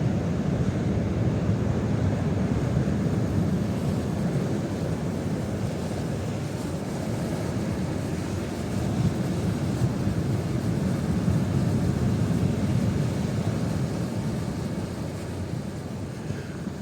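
Strong wind buffeting the microphone, a steady low rumble with no clear engine or propeller tone in it.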